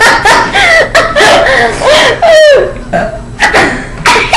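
People laughing loudly in repeated bursts, with wavering, bending pitch.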